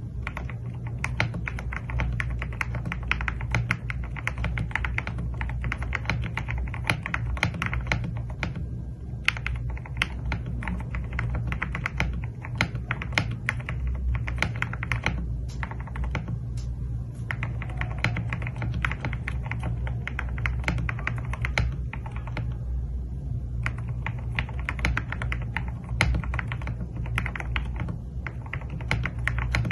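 Fast typing on a Xinmeng M75 Pro mechanical keyboard with hand-lubed Gateron Milky Yellow Pro linear switches, a polycarbonate plate, PE and foam dampening with a tape mod, and MOA-profile keycaps: a dense run of 'thocky' keystrokes, broken by a few short pauses.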